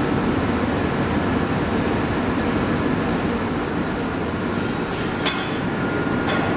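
Steady noise of a glassblowing hot shop's furnace and glory hole running, with a few light clinks about five seconds in and near the end.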